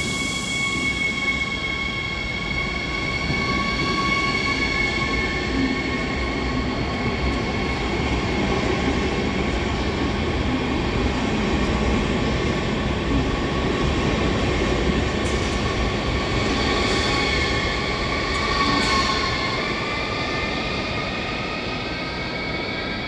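ODEG Siemens Desiro HC double-deck electric multiple unit moving past close by, its electric traction drive whining in several steady tones over a continuous rumble of wheels on rail. The whine glides to new pitches about three-quarters of the way through.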